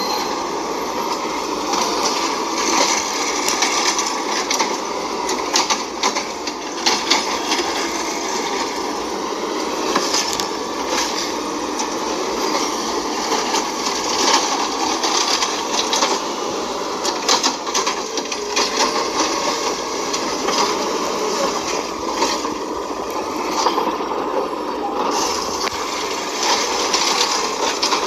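Automated side-loader garbage truck running at the curb, its engine and hydraulics making a steady mechanical noise with frequent knocks and rattles; near the end its arm lifts a wheeled cart to dump it.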